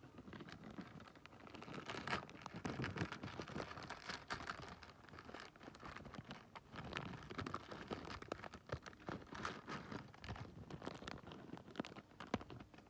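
Crinkling and rustling, with many small clicks and taps, as fishing hooks and their packaging are handled and sorted into a plastic tackle box.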